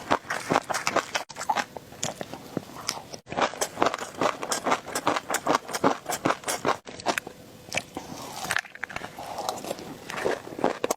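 Close-miked eating: rapid crunchy bites and wet chewing with crackles, broken by several abrupt cuts.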